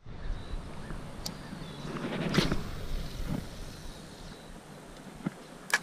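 Handling of a Shimano spinning rod and reel: a brief swishing rustle a little past two seconds in and a few small clicks over a faint outdoor background.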